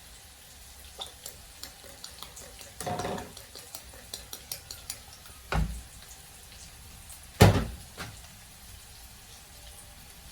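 Cookware and utensils being handled in a kitchen: scattered light clicks and taps, a short rush of sound about three seconds in, and two loud knocks about five and a half and seven and a half seconds in, the second one the loudest.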